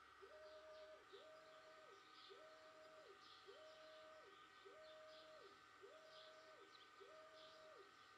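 xTool D1 10 W diode laser engraver's axis motors whining as the laser head sweeps back and forth engraving wood. Each pass gives a pitch that rises, holds and falls back, about one pass a second, over a faint steady whine.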